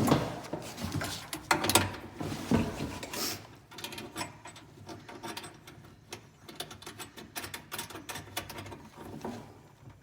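Flexible metal conduit and its connector being handled and twisted together, making quick irregular metallic clicks and rattles.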